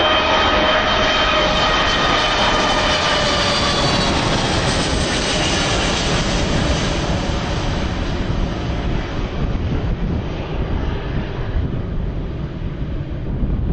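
Jet airliner's engines passing low overhead on landing approach: a high engine whine drops in pitch as the plane goes over a few seconds in, leaving a broad rumble that slowly fades away.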